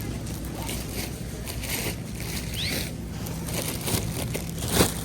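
Grocery store background: a steady low hum with scattered rustling and clattering, a short rising squeak about halfway through, and a sharp knock near the end.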